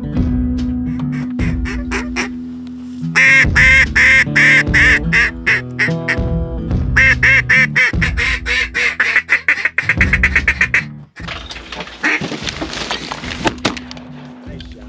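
A duck call blown in a series of loud quacks: a measured run of about half a dozen, then a faster run of rapid calls, over background guitar music. After about eleven seconds the music and calling stop and outdoor wind noise takes over.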